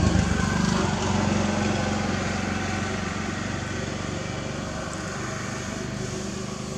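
A small engine running steadily, slowly fading away.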